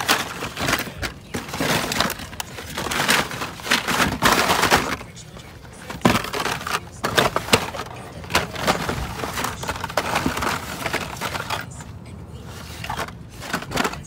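Hands rummaging through a table of diecast toy cars: irregular bursts of rustling and clattering with sharp clicks as the cars and their packaging are shifted and handled.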